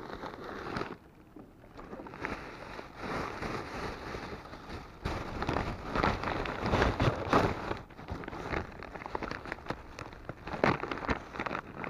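Plastic bag and clothing rustling and crinkling right against the camera microphone, with irregular crackles and small knocks as gear is handled.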